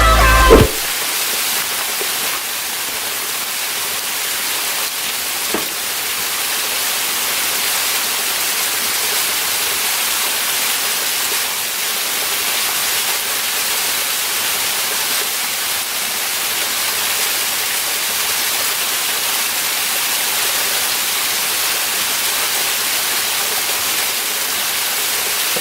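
Waterfall rushing: an even, steady hiss of falling water with no break. Electronic music cuts off just after the start.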